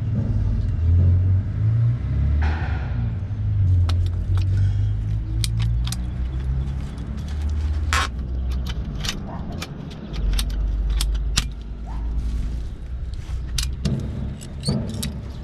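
Sharp clicks and light knocks of gloved hands and a ratchet pipe cutter working on plastic and insulated water pipes, the loudest click about eight seconds in, over a steady low rumble.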